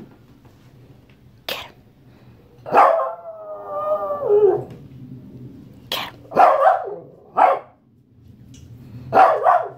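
Shih tzu barking to demand fruit: one long, drawn-out howling bark about three seconds in that drops in pitch at its end, then a few short, sharp barks.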